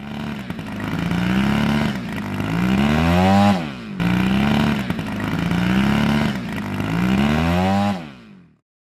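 An engine revving, heard as a sound effect played twice in identical four-second passes. Each pass starts with a wavering engine note, then the pitch climbs sharply and drops away. It ends about a second before the end.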